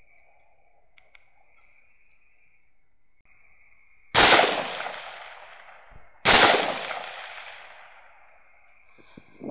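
Two rifle shots about two seconds apart, each followed by a long fading echo.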